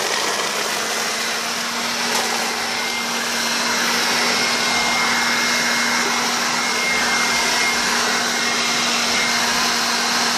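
Portland 3-in-1 electric blower vacuum mulcher running steadily in vacuum mode, pulling styrofoam pieces through its impeller into the collection bag. It makes a steady whine, and a faint high whistle joins it a couple of seconds in.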